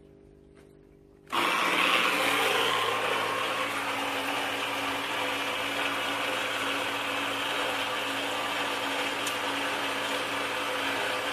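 A small electric water sprayer starts up about a second in and runs steadily: a motor hum under the hiss of a water jet spraying onto a plant's root ball to wash out the planting substrate.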